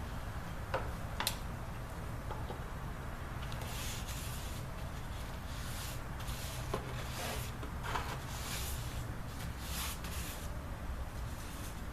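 Wooden dulcimer body parts being handled and fitted: scattered light knocks and clicks, with a few short scraping strokes in the middle, over a steady low hum.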